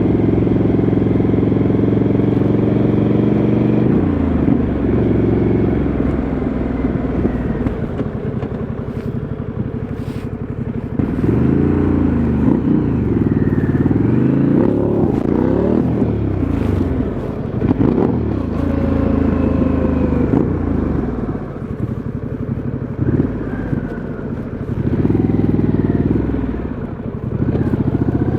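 Motorcycle engine heard from on board, steady at first, then repeatedly revving up and dropping back as the bike accelerates and slows through the gears, with brief clicks between.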